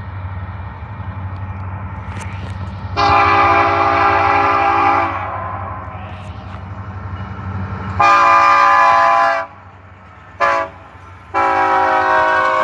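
Diesel locomotive air horn sounding the grade-crossing signal, two long blasts, one short and a final long one, a chord of several notes, over a steady low rumble from the approaching train.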